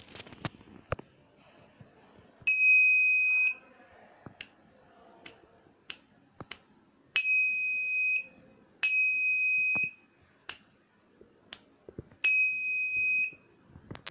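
Electronic buzzer on an Arduino sound-detector circuit beeping four times, each a steady high beep about a second long, as the circuit responds to sound picked up by its microphone sensor. Sharp clicks sound in between the beeps.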